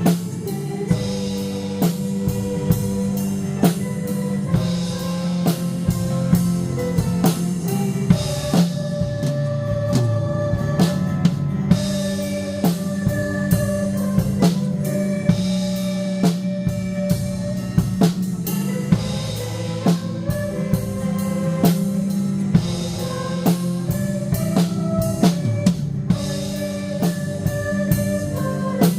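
Band playing a praise song, with a drum kit keeping a steady beat of snare and kick hits over sustained bass and chords.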